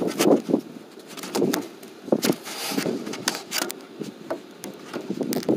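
Irregular clicks, knocks and scrapes of hand tools: a socket on a breaker bar being fitted onto a bolt up in a car's wheel well.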